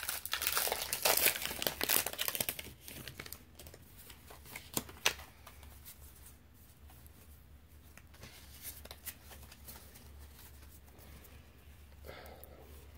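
Foil booster-pack wrapper crinkling and tearing open for the first few seconds, then faint rustling and a few light ticks as the trading cards are handled.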